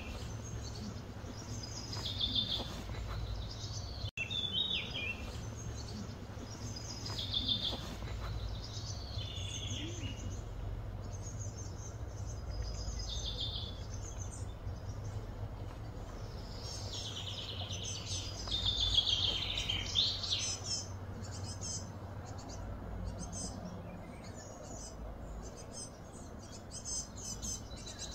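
Birds singing outdoors: short chirping phrases every second or two, loudest about two-thirds of the way through, over a steady low hum.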